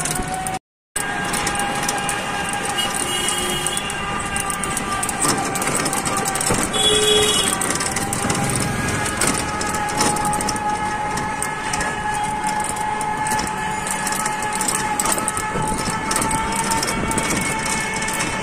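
Riding in an open e-rickshaw along a lane: a steady whining drone over road and traffic noise, with a short horn beep about seven seconds in.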